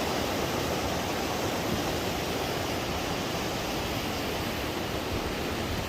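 Rushing river water: a steady, unbroken hiss of fast-flowing water.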